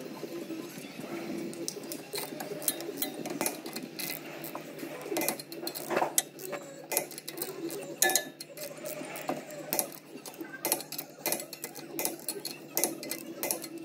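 Hand ratchet clicking in irregular runs, with metal clinks of socket and nuts, as the nuts holding a wheel spacer to the hub studs are run down. A steady low hum lies under it.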